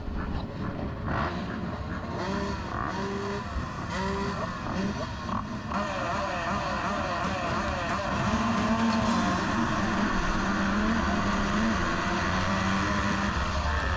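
A field of motocross bikes revving at the start gate, pitch rising and falling, then about halfway through the sound thickens and holds loud as the pack accelerates together off the line.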